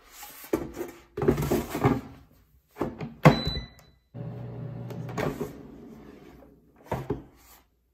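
Metal air fryer basket clattering and sliding back into a PowerXL Vortex Pro air fryer, then shutting with a thunk about three seconds in, followed by a brief high tone. The fryer then runs with a steady hum. A further knock near the end comes as the basket is pulled out again.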